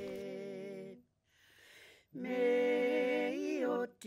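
Unaccompanied singing of a slow song in Māori: a held note with vibrato that ends about a second in, a short pause, then a second long held note with vibrato.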